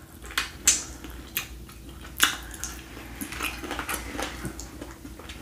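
Close-miked eating sounds from sucking and picking meat off a chicken wing bone: a string of sharp wet mouth clicks and smacks, the loudest about two seconds in.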